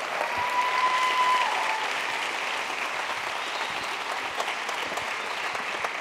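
Audience applauding at the end of a talk, with a steady high tone held for about a second and a half near the start.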